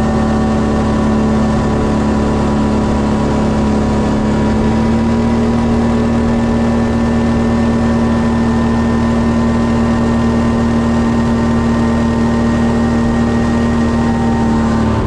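Quad bike (ATV) engine running at a steady cruising speed, heard from on board as an even drone; its pitch edges up slightly about four seconds in.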